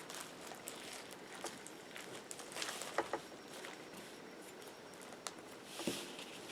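Faint handling of a big, add-in-packed slime: scattered soft clicks and small pops, a few a bit louder about three seconds in and again near the end.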